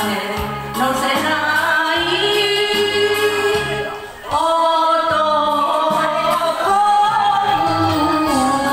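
A woman sings an enka song into a handheld microphone over a karaoke backing track, holding long notes. There is a brief pause between phrases about four seconds in.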